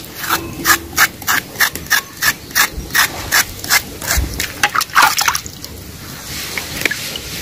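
Kitchen knife scraping the thin top layer off a peeled cassava root in quick, even strokes, about three a second, stopping about five seconds in, over a metal basin of water.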